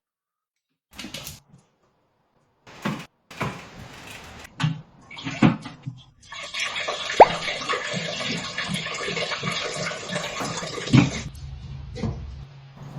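Water splashing and running: a few scattered splashes, then a steady rush of water for about five seconds that cuts off suddenly.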